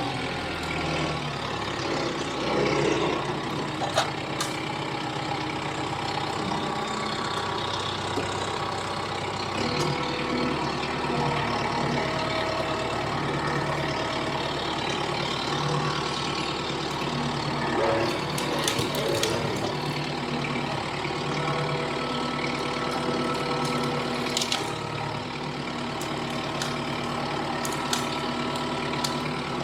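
Kubota M6060 utility tractor's diesel engine running steadily, its pitch shifting a few times as it works, with a few short knocks and clacks.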